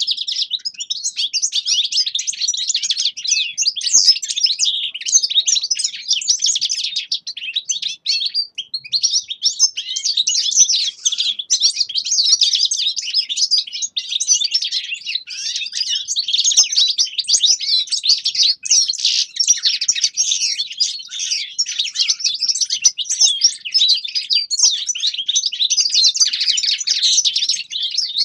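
Caged finches, European goldfinches among them, singing: a continuous, rapid, high twittering that never pauses.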